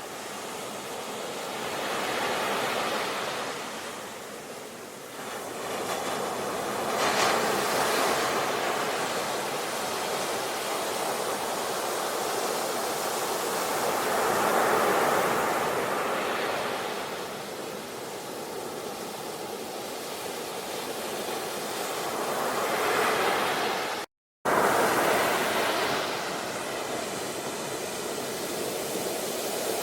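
Ocean surf: waves breaking and washing in, the noise swelling and ebbing every few seconds. The sound cuts out completely for a split second about 24 seconds in.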